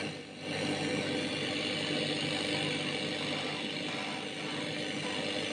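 Sanyo M-9975K radio cassette recorder's FM band hissing with static from its speakers while being tuned between stations, with a steady hum underneath.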